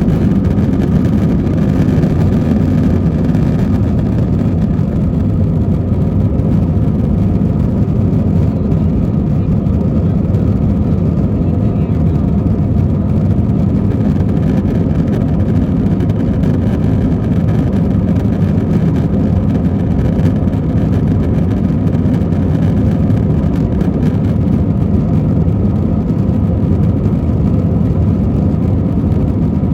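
Steady cabin drone of an Airbus A321 in flight: a loud, even rush of jet engine and airflow noise heard from inside the economy cabin, with a faint steady hum above it.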